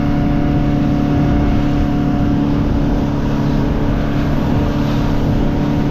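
Motorboat engine running steadily under way, a constant hum with no change in speed.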